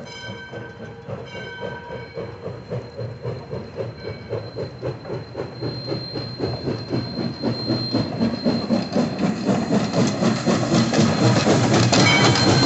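Steam locomotive No. 40 starting a train: its whistle blows twice briefly, then its exhaust chuffs come in an even beat that quickens and grows louder as the engine draws near and passes.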